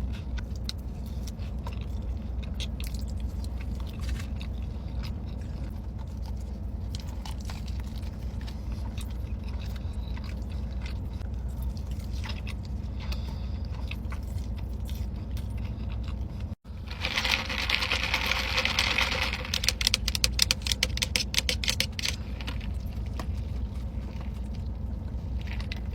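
Close-miked eating: chewing with small wet clicks and crunches over a steady low hum. About two-thirds of the way through the sound cuts abruptly to another clip with louder, denser crunching and a quick run of crackles.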